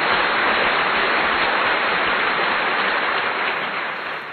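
A loud, steady hiss that eases off near the end.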